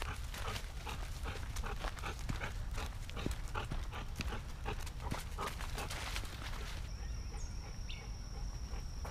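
Footsteps and dogs' paws crunching rapidly through dry leaf litter on a woodland trail. About seven seconds in this gives way to a steady high whine and a few short bird chirps, with softer footsteps.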